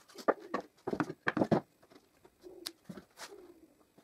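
Pine frame pieces being handled and knocked against each other and the plywood sled base, a quick run of sharp wooden clacks in the first second and a half, then quieter handling.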